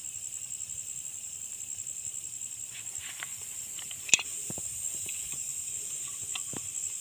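Steady, high-pitched chorus of night insects with a fast pulsing trill. From about three seconds in, leaves rustle and a sharp click stands out about four seconds in as someone pushes through the undergrowth.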